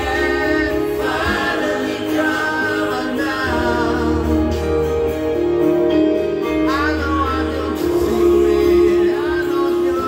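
A man singing a folk-pop song into a handheld microphone over instrumental accompaniment with a steady bass; his voice slides between notes in several phrases.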